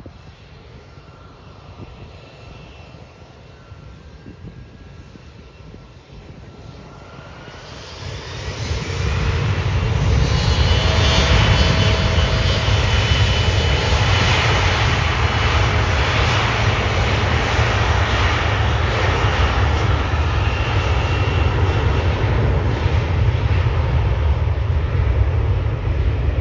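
Turbofan engines of an Embraer E-Jet regional airliner: a faint idle whine at first, then about eight seconds in the engines spool up to take-off thrust and run loudly with a deep rumble and a high fan whine as the jet rolls down the runway.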